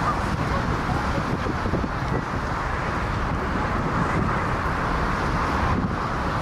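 Jet airliner engines running in a steady roar, with wind buffeting the microphone.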